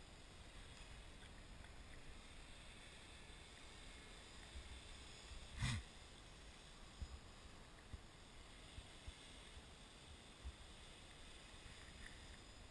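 Near silence: faint wind rumble on the microphone, with one sharp knock about halfway through and a few softer low thumps after it.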